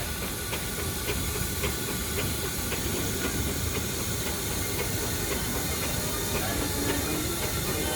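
Steam engine hissing steam, with a light regular clicking about twice a second over a low rumble.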